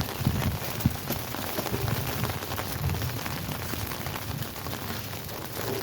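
Heavy rain falling steadily, with a few dull low knocks, the sharpest a little under a second in.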